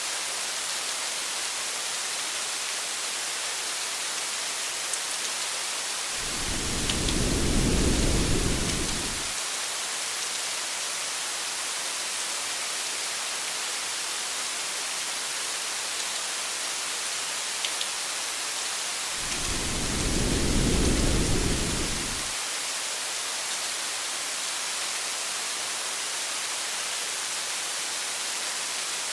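Steady rain hiss, with two low rumbles of thunder that each swell and fade over about three seconds, one about a quarter of the way in and one about two-thirds in.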